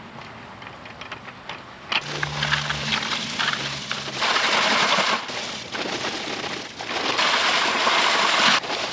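Dry bagged concrete mix (Sakrete) poured into a plastic bucket: a gritty rushing hiss that starts about two seconds in, with two loud pours, one around four seconds in and a longer one near the end.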